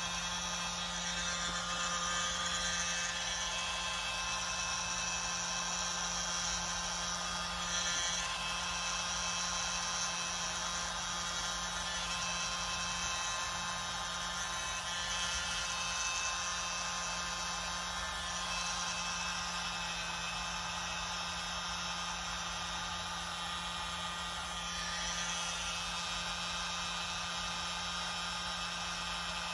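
Small electric mini blower running steadily with a whirring motor hum, blowing a stream of air through a tube attachment over wet acrylic paint.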